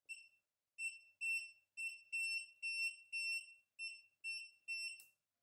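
Elegoo Mercury Plus wash-and-cure station beeping as its touch buttons are pressed: about ten short, high beeps roughly half a second apart, some held a little longer than others, with a small click near the end.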